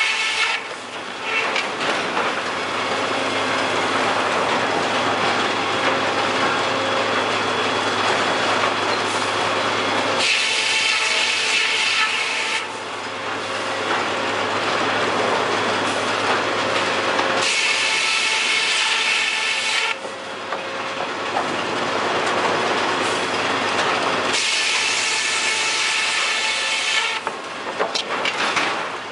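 Circle saws of an overhead sawmill cutting logs with heavy, continuous mill noise. Stretches of dense cutting noise alternate about every seven seconds with stretches where a high steady whine rings out.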